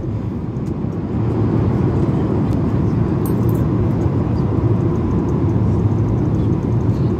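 Steady drone of airliner engines and airflow heard inside the passenger cabin in flight, a deep, even rumble.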